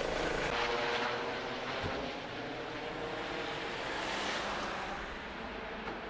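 ADAC rescue helicopter, a Eurocopter EC135, flying away as it climbs. Its steady rotor and turbine noise grows slightly fainter after about two seconds.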